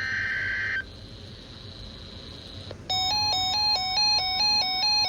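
Emergency Alert System header data burst, a short screech of digital tones ending under a second in. About two seconds later the alert's attention tone starts, switching back and forth between two pitches several times a second.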